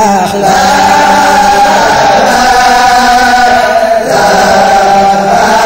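Voices chanting a Baye Fall Sufi zikr (dhikr), singing long, held phrases that break and restart about every two seconds.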